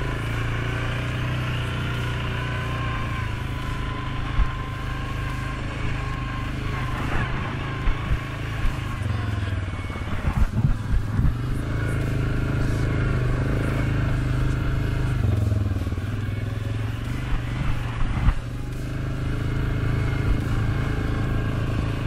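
Suzuki KingQuad 750 ATV's single-cylinder engine running steadily while riding, its pitch rising and falling a little with the throttle. Knocks and rattles come from the quad over rough trail, a cluster of them about halfway through and a sharp thump near the end.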